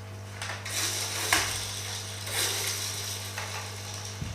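Rustling and handling noises in a few short spells, with a sharp click about a second in, over a steady low electrical hum.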